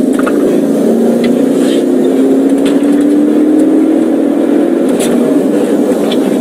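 Car engine accelerating, its pitch rising slowly for about five seconds, over steady road rumble.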